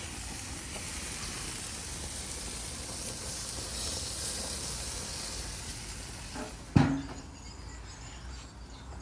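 Chicken sizzling on a barbecue grill, a steady hiss. A single sharp thump comes about seven seconds in, after which the sizzle is quieter.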